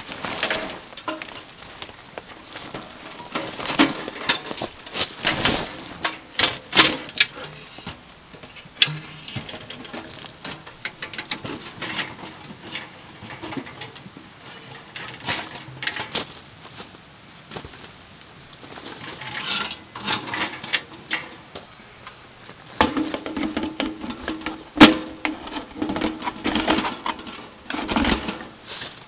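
Camping gear being handled and set up: irregular clicks, knocks and rattles coming in clusters, with one sharp knock louder than the rest a few seconds before the end.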